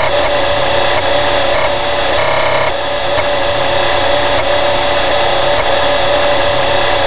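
Emulated TRS-80 floppy disk drive loading a program from disk: a loud, steady mechanical whirr with a constant hum and scattered faint clicks.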